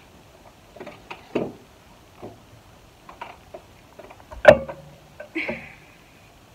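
Scattered light clicks and rustles from hands working natural hair and a hair band, with one sharper knock about four and a half seconds in.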